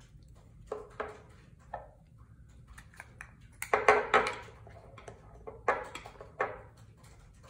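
Small glass jar of edge paint being handled and its plastic screw lid taken off: a few soft knocks and clicks, then a louder cluster of clicks and scraping about four seconds in.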